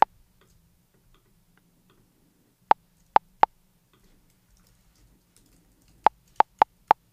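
The Arturia Drumbrute Impact's metronome click, sampled and pitched down two octaves, played as single short blips: one at the start, three around three seconds in, and a quicker run of four near the end.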